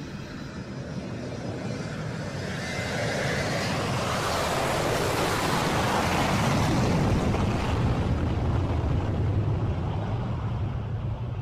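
Jet engines of a McDonnell Douglas MD-80-series airliner running at takeoff power as it rolls down the runway: a roar over a low rumble that builds, is loudest and hissiest around the middle as the jet passes, and then eases off.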